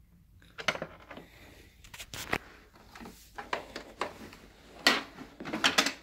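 Handling noise: an irregular series of clicks, knocks and rustles, with no motor running. The loudest clicks come near the end.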